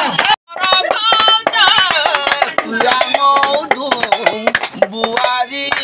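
A man singing an Oinitom, a Mising folk song, over hand clapping in rhythm from the men around him. The sound drops out briefly just after the start.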